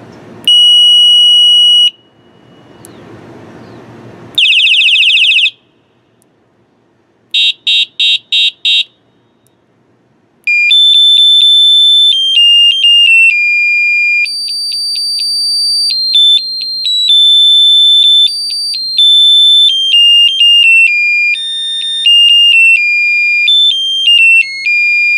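Electronic bicycle horn sounding several of its preset tones in turn. First comes a steady high beep of about a second and a half, then a buzzy blast, then a quick run of five short beeps. From about ten seconds in, a long electronic melody of high notes stepping from pitch to pitch plays.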